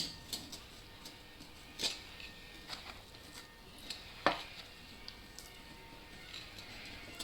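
Scattered metal clinks and light scrapes of a hand tool worked under the edge of a Holden 253 V8's oil pan to pry it loose, with one sharper knock about four seconds in.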